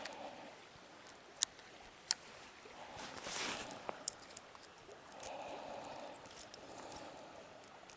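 Spinning-rod fishing sounds: two sharp clicks, a short swish a second later, then a spell of rough whirring from the reel being wound in, about five seconds in.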